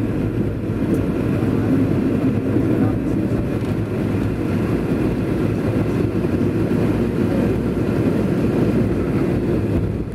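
Steady low rumble inside a jet airliner's cabin while it taxis: the engines running at taxi power along with the noise of the aircraft rolling on the ground.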